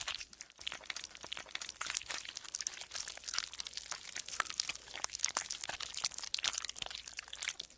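Golden slime being squeezed and stretched by hand, making a dense stream of sticky crackles, pops and squelches. It dips briefly about half a second in.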